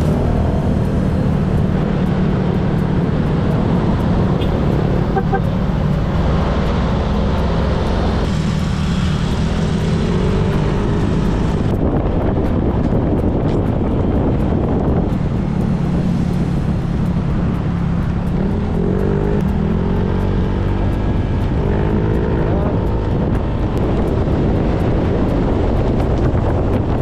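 Road traffic noise heard from a moving motorcycle: a steady rumble of engines and wind. Engine notes rise and fall as vehicles speed up, around ten seconds in and again around twenty seconds in.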